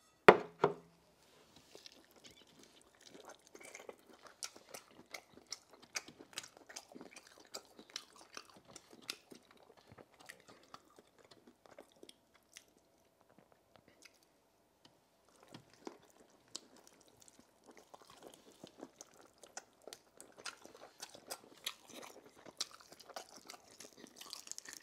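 Close-miked chewing of roast chicken pieces dipped in pepper sauce: a long run of small, irregular wet clicks and crunches, thicker in the second half. The loudest thing is a single sharp knock just after the start.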